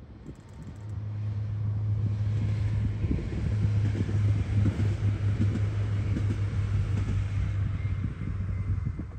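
Bombardier AGC diesel railcar (SNCF X 76500) running past, its engine drone swelling over the first couple of seconds and then holding steady.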